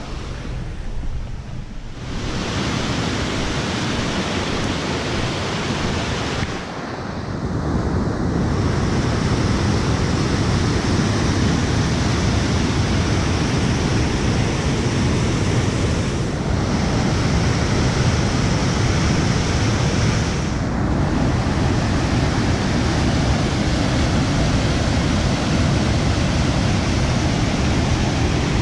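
A creek in flood, high and rising at about 1500 cfs: a steady rush of fast, muddy whitewater. It is quieter for the first couple of seconds, then steps up louder, with abrupt shifts where clips are cut together.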